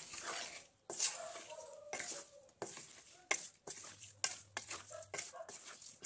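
Wooden spatula stirring and tossing oily, spice-coated raw mango pickle pieces in a metal kadai: irregular soft knocks and scrapes against the pan, one or two a second.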